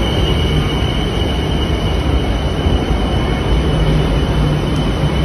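Electric metro train at the platform, a steady low rumble with a thin high-pitched whine held over it.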